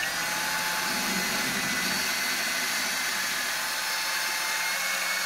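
Power drill running steadily at one speed, its bit boring through the particle-board side of a closet organizer to open up a stripped screw hole. The motor gives a steady whine over a grinding hiss.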